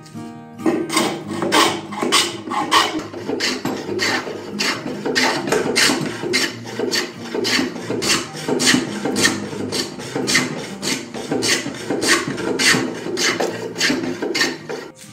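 Metal hand plane shaving a wood edge in quick back-and-forth strokes, about two scraping strokes a second, starting about half a second in.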